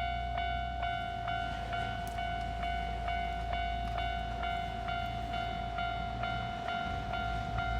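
Japanese railway level-crossing alarm bell ringing in a steady rhythm of about two strokes a second over a held tone, with a low rumble underneath.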